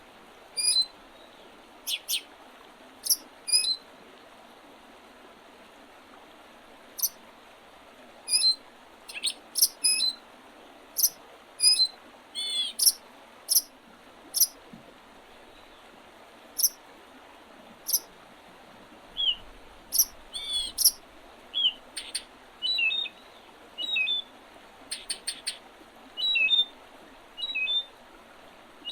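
Wild songbirds calling in short, high chirps and brief call notes, one every second or so, over a steady background hiss.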